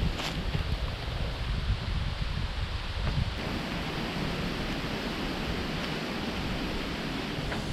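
Strong wind blowing, with low buffeting rumble on the microphone; the rushing grows fuller about halfway through.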